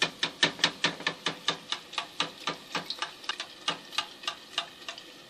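Hot frying oil being scooped and splashed over a piece of griwech dough in a metal pot, making quick rhythmic taps, about four a second, that slow and stop near the end.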